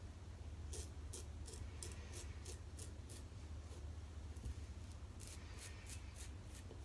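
Adjustable Merkur Futur safety razor with a new Feather blade scraping through lathered stubble in short strokes, about three a second in the first few seconds, then another quick run of strokes near the end.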